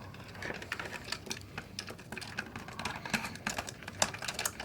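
Small plastic toy cars and playset parts clicking and clattering as they are handled and pushed into a plastic garage: a quick, irregular run of light clicks.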